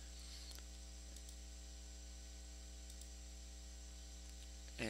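Steady low electrical mains hum with evenly spaced overtones over a faint hiss.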